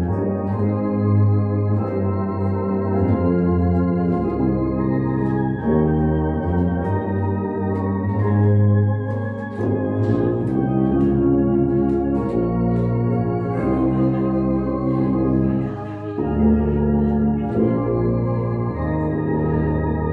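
A tuba and a large low saxophone playing a slow hymn together in sustained notes that move in step every second or so, with the deep tuba line carrying the bass.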